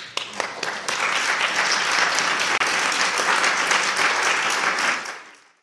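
Audience applauding. The clapping swells within the first second, holds steady, and fades out near the end.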